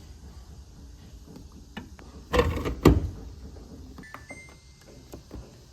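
Household handling noises: a brief scraping rustle followed at once by a sharp clunk a little over halfway through, with small clicks around them, then a faint steady high electronic beep lasting about a second near the end.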